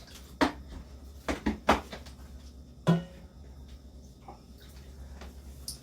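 Tableware being handled: about five short, sharp clacks and knocks of bowls and utensils in the first three seconds, as rice is being served.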